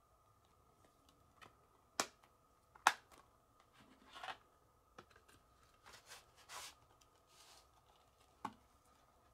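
Plastic Blu-ray case snapping shut with two sharp clicks, then the case and its cardboard slipcover being handled, with several brushing, sliding rustles and one more small click near the end.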